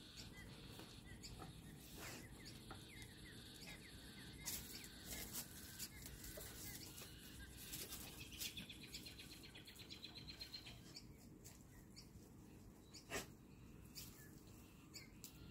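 Near silence with faint bird chirps in the background and a short, fast bird trill about halfway through, broken by a few brief sharp clicks.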